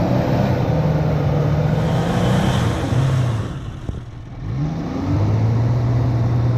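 Opel Frontera's engine revving under load as the 4x4 works through deep mud. The revs ease off for about a second past the middle, then climb again.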